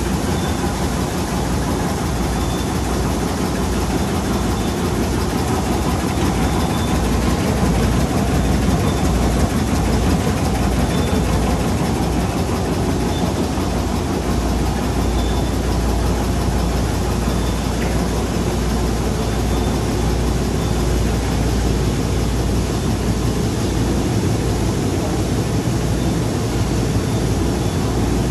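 Straw erosion-control blanket machine running steadily, a loud, even mechanical din with a deep hum underneath.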